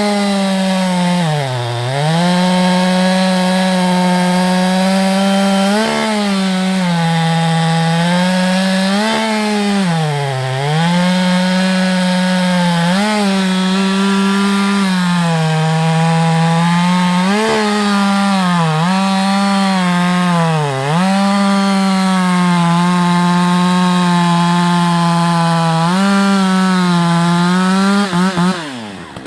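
Husqvarna 365 two-stroke chainsaw held at full throttle, cutting through a large beech log. Its pitch sags briefly about every four seconds as the chain bogs under load, then drops away near the end as the throttle is released.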